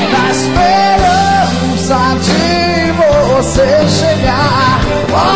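Live band playing a pop-rock song: a bending lead melody line with vibrato over held chords and drums.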